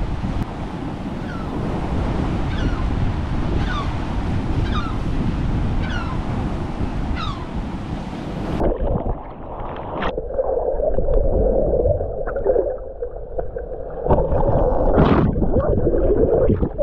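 Wind buffeting the microphone over waves and sloshing sea water. About halfway in, the sound turns suddenly muffled, leaving gurgling, swirling water and a few knocks.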